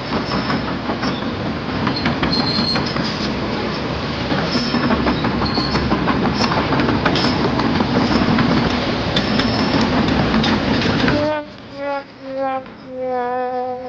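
Loud, steady mechanical rumble full of rattling clicks, like heavy machinery working. It stops abruptly about eleven seconds in, followed by a quick run of short pitched notes.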